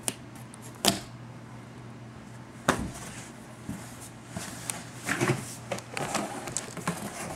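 Scattered knocks and clicks of a homemade play house's small door and windows being handled, opened and shut: one knock a little under a second in, a sharper one near three seconds, then a quicker cluster of bumps late on.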